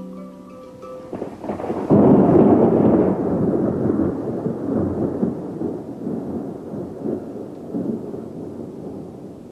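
A roll of thunder: a sudden rushing rumble that swells about two seconds in and slowly dies away. Mallet-instrument music fades out just before it begins.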